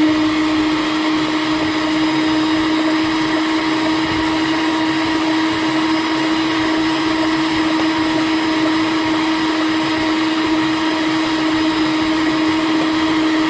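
Electric stand mixer running at one steady speed, its beaters whipping egg-white meringue: a constant motor hum and whine.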